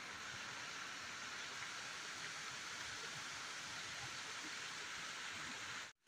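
Waterfall rushing down a rocky hillside: a steady, faint hiss of falling water that cuts off abruptly just before the end.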